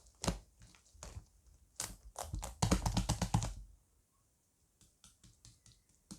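Chocolate-coloured slime being squished and pressed by hand, its trapped air bubbles popping in sticky clicks and crackles. The popping comes thick and fast from about two seconds in, stops shortly after three and a half seconds, and then a few faint clicks follow.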